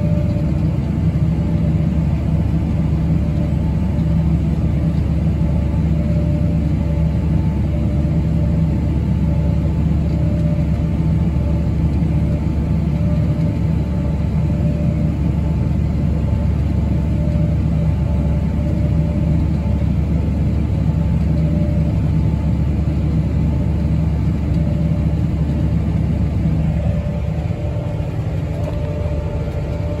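Steady engine drone of the tractor pulling a grain cart, heard from inside its cab, with a combine working alongside. Near the end the low rumble drops a little and the sound shifts.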